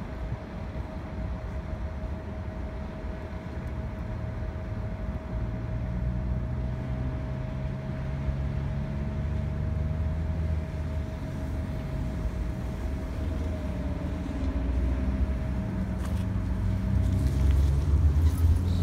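City transit bus engine running as the bus creeps up to the stop, its low rumble growing louder. A steady whine runs under it until about two-thirds of the way through, and a few sharp knocks come near the end.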